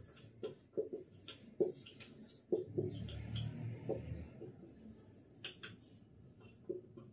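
Marker pen writing on a whiteboard: a string of short, faint strokes and taps as letters are written out.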